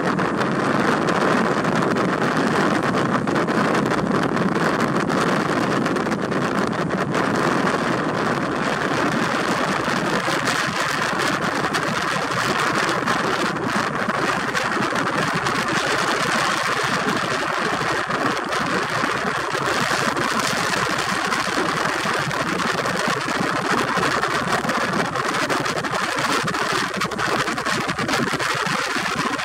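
Steady rushing noise aboard a moving Seastreak passenger ferry: the drone of its engines blended with wind and water, even and unbroken, a little fuller for the first ten seconds or so.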